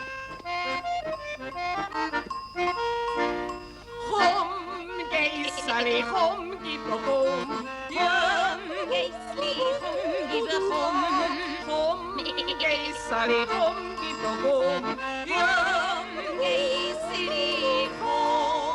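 Background music in a traditional folk style, led by accordion. About four seconds in, a melody with strong vibrato joins it.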